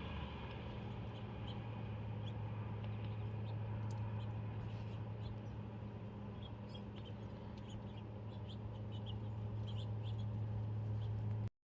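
Faint, short high chirps, likely from small birds, scattered over a steady low hum. The sound cuts off abruptly near the end.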